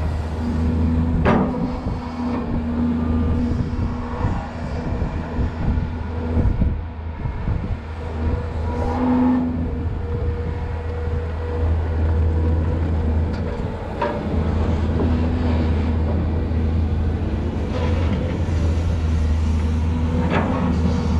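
Volvo EC210BLC excavator's diesel engine running steadily under load as the hydraulic arm and toothed bucket dig into the soil. A few sharp knocks stand out, about a second in, about two-thirds of the way through and near the end.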